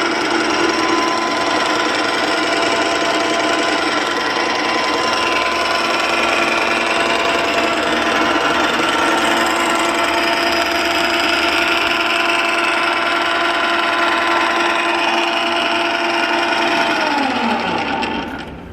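Metal lathe running steadily under power, with several held tones from its motor and gearing. About seventeen seconds in it is switched off and the tones fall in pitch as the spindle winds down.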